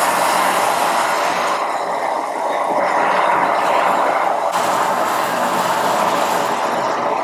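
Molten sugar caramel in a steel saucepan sizzling and spattering hard as cold water is poured in and stirred with a wooden spoon, throwing up steam. The hiss is loud and steady, easing slightly at the top about two seconds in.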